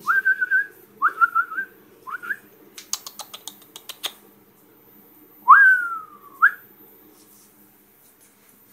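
A person whistling to call a dog: three short rising, warbling whistles, then a quick run of about ten sharp clicks, then one long whistle that glides down and snaps back up.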